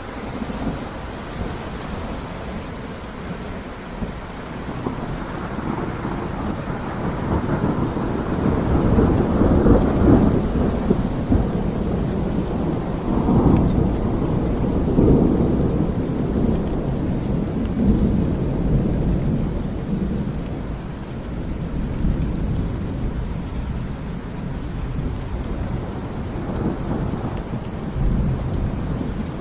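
Steady rain with low rolling thunder, the rumble swelling and peaking several times in the middle before easing back to the rain.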